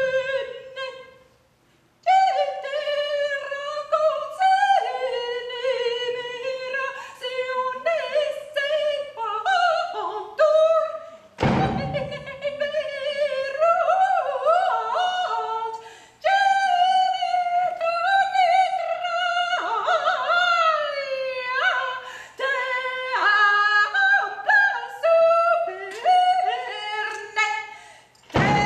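A woman's voice singing wordless, high, sliding lines that break and leap in pitch. A bass drum is struck once about a third of the way through and again at the very end.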